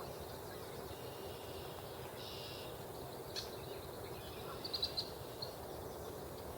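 Wetland ambience: brief high-pitched bird calls, a buzzy note about two seconds in and a quick rapid trill near five seconds, over a steady low background rush.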